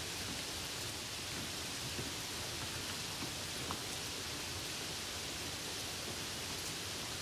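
Steady hiss of rain during a drive, with a few faint ticks.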